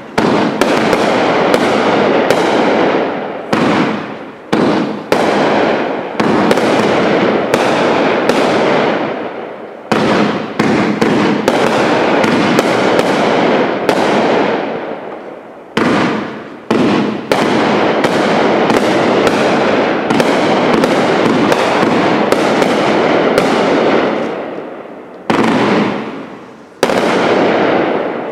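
Multi-shot consumer firework cake, OMG Fireworks' 'OMG 19', firing a long run of aerial shots. The sharp bangs come in quick succession, often one or two a second, and each trails off over a second or so. There are a few short lulls, and the last shot fades out just before the end.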